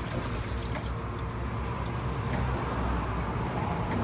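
Steady low mechanical drone of a vacuum tanker's engine and suction pump running.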